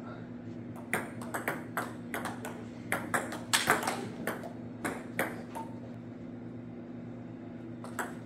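Table tennis rally: the plastic ball clicking off paddles and bouncing on the table in quick succession, the sharpest hits about three and a half seconds in. The clicks pause about five seconds in and start again near the end, over a steady low hum.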